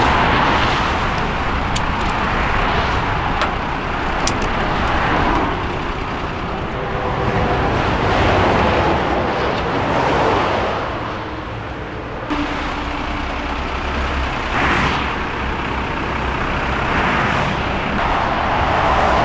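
Heavy motorway traffic passing close by, cars and lorries: a loud rush of tyre and engine noise that swells and fades as each vehicle goes past, with a few faint clicks in the first few seconds.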